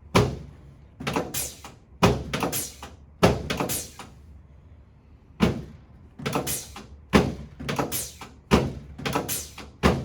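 A series of sharp knocks and thuds in quick clusters of two to four, from rapid chiropractic adjustment thrusts against a treatment table while the ribs, chest and clavicles are worked through.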